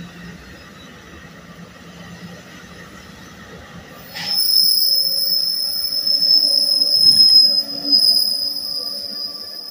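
NJ Transit push-pull train of bilevel coaches, pushed by an ALP-46A electric locomotive, departing past the platform. A low steady rumble, then about four seconds in a loud, steady, high-pitched squeal from the train sets in and holds.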